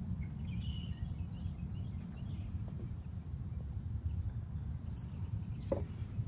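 Faint bird chirps early on over a steady low rumble, then one short, high bird note about five seconds in. Near the end comes a single footstep on the wooden dock.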